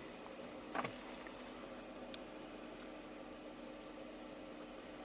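2012 Dodge Durango V6 idling quietly, under a faint, regular high-pitched chirping of about three chirps a second, with a short soft knock about a second in.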